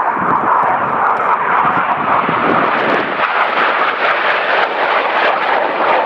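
Jet engines of a five-ship formation of BAE Hawk jets flying past, a loud steady rushing noise that swells at the start.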